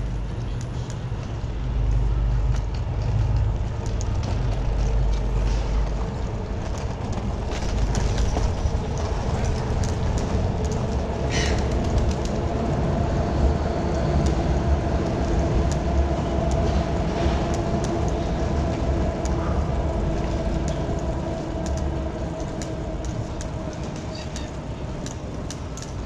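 Wind buffeting the microphone and road rumble while riding a bicycle down a paved lane, with scattered light clicks and rattles. A steady hum joins for much of the middle and fades near the end.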